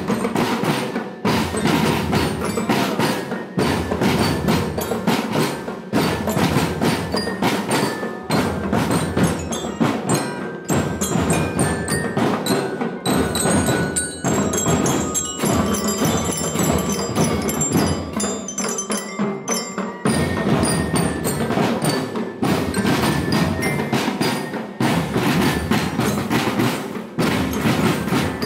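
Marching bells struck with mallets, ringing out a melody over steady marching snare and tenor drum strokes; the bell tones stand out most in the middle of the passage.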